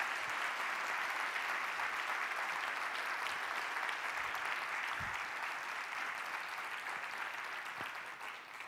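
Audience applauding steadily at the end of a talk, tapering off near the end.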